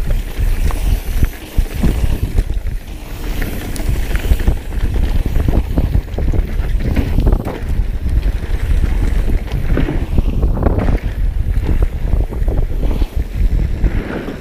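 Mountain bike ridden fast down a dirt trail: tyres rolling over dirt and frequent short rattles and clacks from the bike, under heavy wind buffeting on the microphone.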